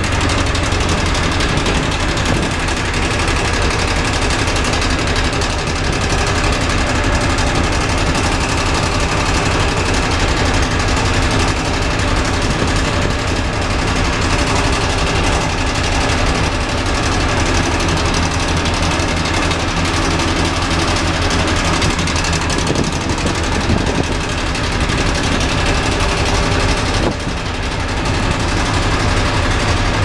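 The ferry Queen of Surrey's sundeck bench seats making a strange noise: a fast, continuous buzzing rattle over the ship's steady low engine hum.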